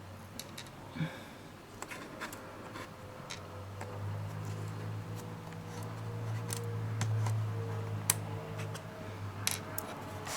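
Scattered light clicks and ticks of small screws and a screwdriver being handled while taking apart a laptop's case. A low hum rises about four seconds in and fades away near the end.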